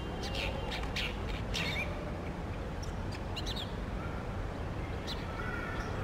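Brown shrike giving short, sharp calls in scattered bursts: several in the first two seconds, another cluster about three and a half seconds in, and one more near five seconds, over a steady low rumble.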